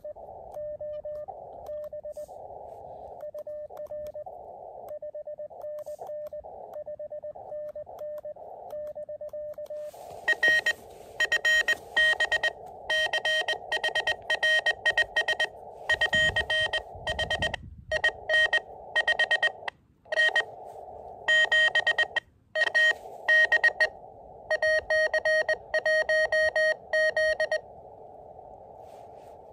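Morse code (CW) tones from an Elecraft KX2 transceiver over the receiver's narrow hiss: for about ten seconds a fainter keyed signal at one steady pitch, then a much louder, harsher keyed tone sending dots and dashes that stops a couple of seconds before the end, leaving the hiss.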